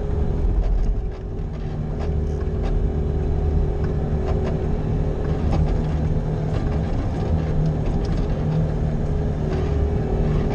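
Bobcat skid-steer loader engine running steadily while plowing snow, with a steady whine over the rumble and scattered light knocks.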